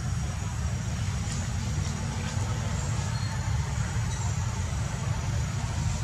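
Steady low rumble of wind buffeting the microphone, with faint high chirps now and then.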